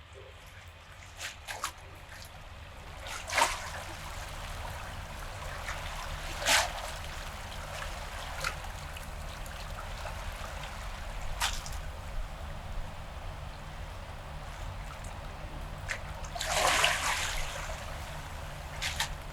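Water trickling steadily, with a few short splashes, the longest near the end.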